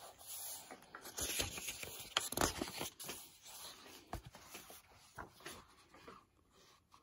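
Paper pages of a hardback book rustling as they are turned, with light taps from handling the book; quieter in the last second.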